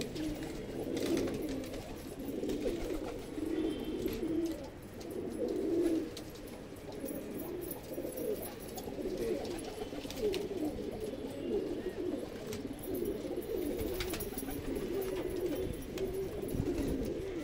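Several domestic pigeons cooing continuously, their low warbling calls overlapping. They are courting: males in breeding-season mood, puffing up and spreading their tails.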